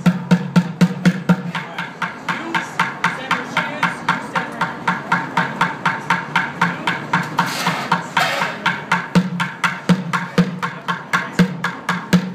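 Drumming on white plastic buckets: a fast, steady run of strikes, about five a second. Deeper booming hits come in at the start and again in the last few seconds.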